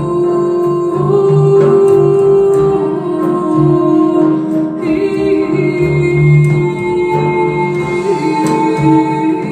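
A song with singing over long held chords, played back through Wharfedale Diamond 220 speakers.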